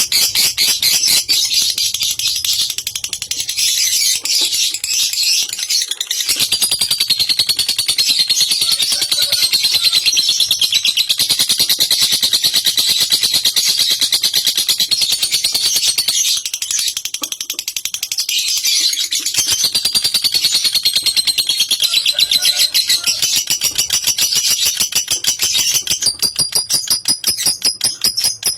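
Lovebird singing its ngekek, a long, rapid, high-pitched chattering trill that runs on almost unbroken.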